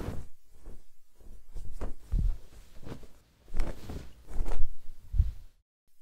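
Vintage film sound effect: irregular low thumps and crackle, like the worn soundtrack of old film stock, cutting out briefly near the end.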